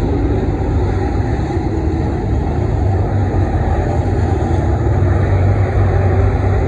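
IMCA Modified dirt-track race cars' V8 engines running at speed around the oval, a loud steady drone with a deep rumble, growing slightly louder near the end.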